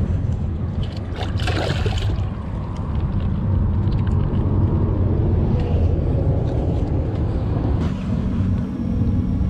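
A red drum splashing and thrashing in shallow water among jetty rocks as it is grabbed, a brief splash about a second and a half in, over a steady low rumble.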